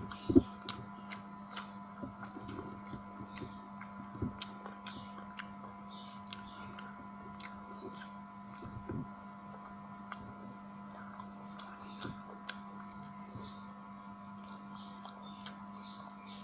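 Close-miked eating sounds: chewing, wet lip smacks and small clicks from a person eating with her hands. A steady electrical hum sits underneath, and one sharper click comes about half a second in.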